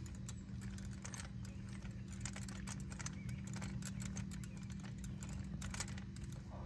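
Irregular metallic clicks and ticks from an Allen wrench turning a frame-slider bolt by hand as it is threaded into the engine mount, over a steady low hum.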